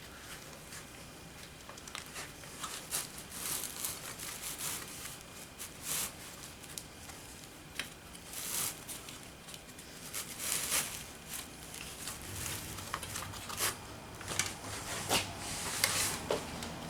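Seat cushion foam and its fabric cover being handled and pulled into place: irregular rustling and scratchy rasps, busier and louder in the second half.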